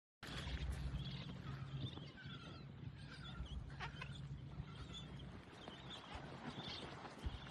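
Short wavering bird chirps over a steady low rumble, starting just after a moment of silence.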